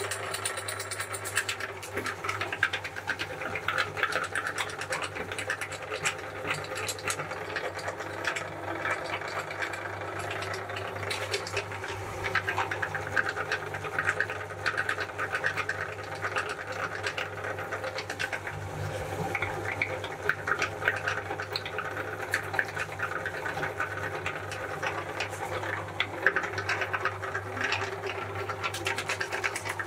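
Cast-iron meat grinder running steadily with a constant low hum, crunching wafer ice cream cones and ice cream through its cutting plate, with dense crackling throughout.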